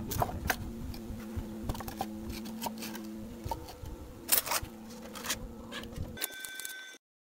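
Wooden brick-mold boards being handled and fitted together on tile: scattered light wooden knocks and clicks over a steady low hum, the loudest knock a little past halfway. About six seconds in the hum stops and a short high electronic tone starts, then cuts off abruptly.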